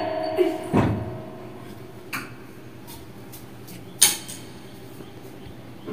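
A dull knock just under a second in, then two sharp clicks about two and four seconds in, the second of them the loudest, over faint steady background noise.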